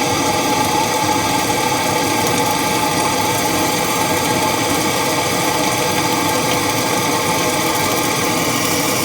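Wet vac motor running steadily with a high whine, sucking up water from the plumbing job.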